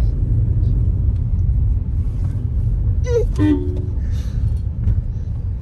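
Steady low rumble of engine and tyre noise inside a car driving along a winding hill road. About three seconds in there is a brief pitched sound.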